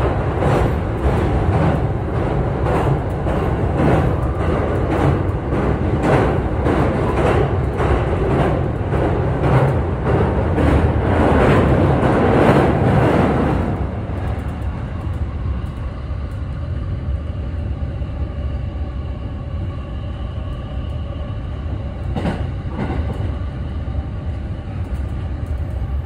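JR East E217-series commuter train heard from inside the passenger car, running at speed: a loud rumble with a regular clatter of wheel beats, about one and a half a second, while crossing a steel truss bridge. About halfway through the noise drops suddenly to a quieter, steadier running rumble with a faint hum as the train comes off onto plain track, with a single click near the end.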